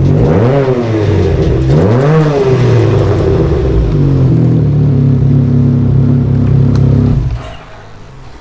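Can-Am Ryker Rally's engine revved twice through an RLS Carbon Series exhaust, then settling to a steady idle with a deep note. The sound drops off sharply about seven seconds in.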